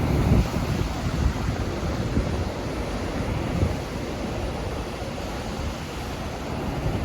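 Strong wind buffeting the microphone over the steady wash of ocean surf.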